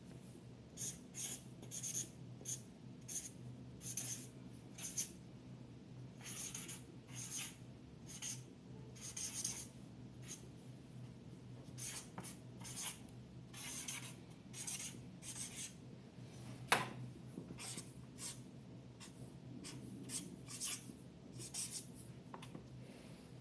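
Writing by hand: many short scratching strokes in irregular runs, with one sharper tap about 17 seconds in, over a faint steady room hum.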